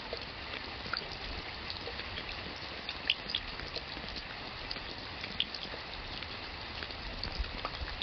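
Steady rain with scattered individual drops ticking and splashing, the sharpest about three seconds in.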